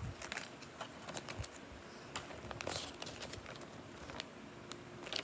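Irregular light clicks, taps and brief rustles of cardboard and plastic packaging as the contents of a Pokémon card battle deck box are handled and taken out.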